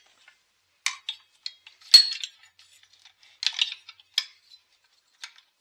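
Small metal parts and hand tools clicking and clinking as a chainsaw is taken apart. A sharper, ringing metallic clink comes about two seconds in, and a cluster of clicks follows around three and a half seconds.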